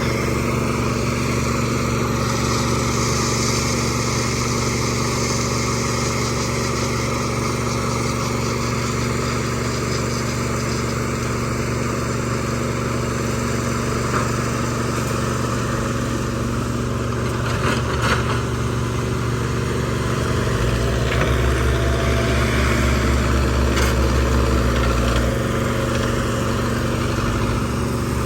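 Heavy machinery running steadily: the engine of a backhoe loader and the concrete mixer plant it is feeding. There is a brief sharp clatter about 18 seconds in, and a deeper low hum joins from about 21 to 25 seconds.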